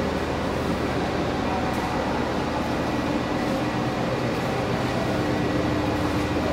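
Heavy lifting or transport machinery running steadily: a constant engine drone with a steady hum that holds one pitch throughout.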